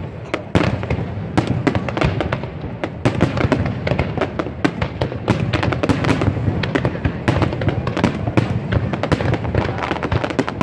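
Aerial fireworks display: shells bursting in a dense, continuous barrage of sharp bangs, several a second, over a rumbling background of overlapping explosions.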